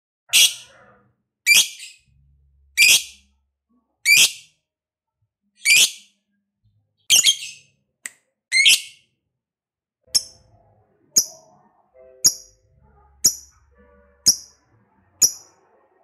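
Lovebird giving a string of separate shrill calls, about one every second or so. About ten seconds in, the calls turn shorter and higher-pitched.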